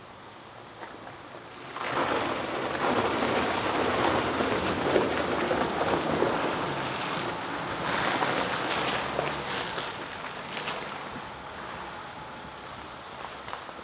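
A Mercedes Sprinter 4x4 van's mud-terrain tyres splashing and churning through a shallow, partly iced-over puddle. The splashing starts about two seconds in, is loudest in the middle with a flurry around eight seconds, and fades after about ten seconds.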